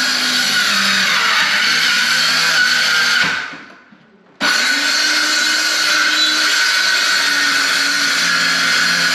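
Electric jigsaw running under load. Its motor winds down about three seconds in, and it starts again abruptly about a second later, then runs steadily.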